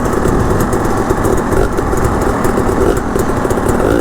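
Dirt bike engine running steadily at low revs, its pitch wavering slightly.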